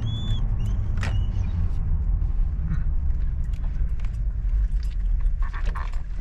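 Steady low rumble of road and engine noise inside a moving Toyota 4Runner's cabin. A few short high squeaks come right at the start, and a click about a second in.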